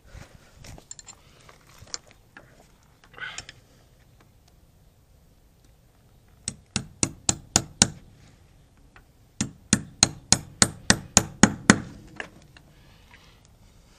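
Hammer tapping the nail of a plastic coax cable clip into a stucco wall: a run of about six quick strikes, a short pause, then about nine more, some three to four strikes a second.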